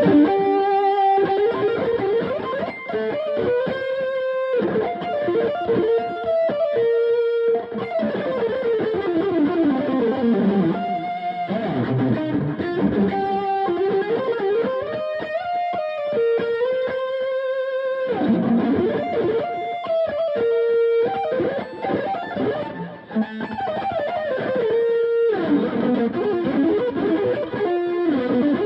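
Distorted electric guitar playing a lead through the Firepower pedal (a JCM 800-style preamp with Tube Screamer-style overdrive) and a delay pedal. Fast rising and falling runs alternate with held notes that waver in pitch.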